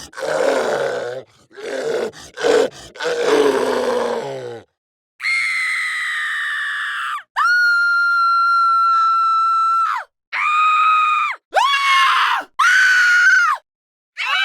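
Horror sound effects: a zombie's rough growls and groans in four bursts, then, after a short gap, a woman's high-pitched screams. One short scream, one long held scream and three shorter ones follow.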